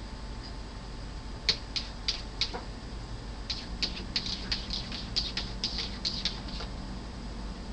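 A cat's paws squeaking and tapping against a frosted glass pane in a series of short, sharp strokes: a few at first, then a quicker run of about a dozen. The cat is pawing at the glass to be let out.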